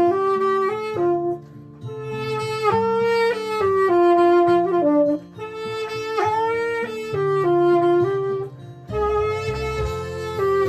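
Instrumental ballad music with no singing: a single lead instrument plays a slow melody in held notes, some of them bent in pitch, over bass and chords, with short breaks between phrases.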